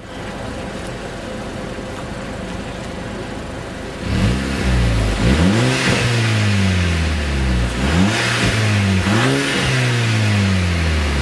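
A 2008 VW GTI's 2.0-litre turbocharged four-cylinder, heard at the exhaust tips. It idles steadily, and about four seconds in it is revved several times, the pitch sweeping sharply up and falling back to idle after each blip.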